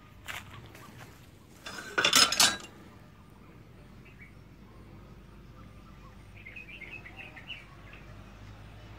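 A short, loud burst of noise about two seconds in, then a small bird chirping in a quick run of short high notes later on.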